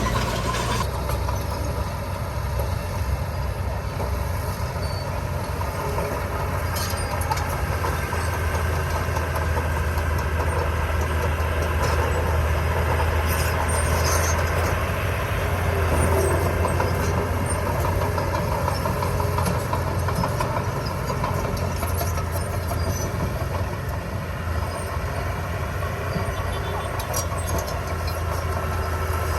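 Heavy diesel earthmoving machinery running steadily: a continuous low engine drone that rises and falls a little in level.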